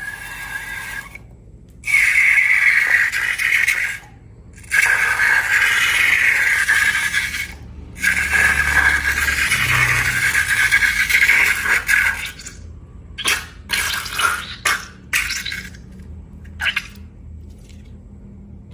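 Thick liquid slime mixture being poured and squished, in three long wet stretches. Then come a few short squelches.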